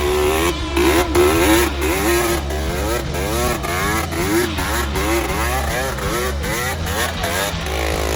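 Kawasaki Z1000 inline-four engine revving up and down over and over, about two rises and falls a second.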